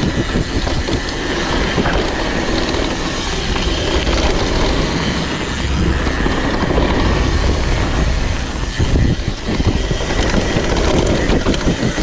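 Downhill mountain bike riding over a muddy trail: tyres rolling through dirt and mud, with the bike's chain and frame rattling in quick, irregular knocks over a steady low rumble.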